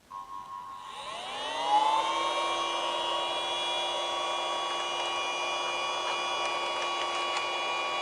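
Mini USB desktop vacuum cleaner switched on: its small motor spins up with a rising whine about a second in, then runs steadily with a high whine and airflow hiss.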